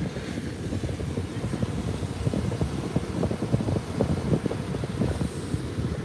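Wind buffeting a phone's microphone in an uneven low rumble, over the wash of ocean surf breaking on the shore.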